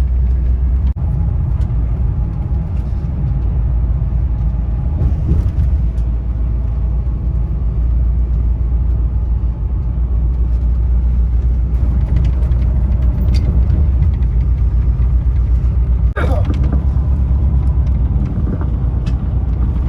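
Steady low rumble of a tour bus driving at highway speed, engine and road noise heard from inside the cabin.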